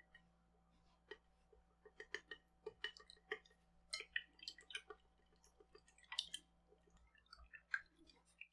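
A quick run of soft taps and light clinks of small hard objects being handled, a few of them ringing briefly.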